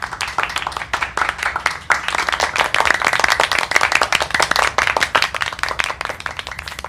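Applause: many hands clapping in a dense, irregular patter.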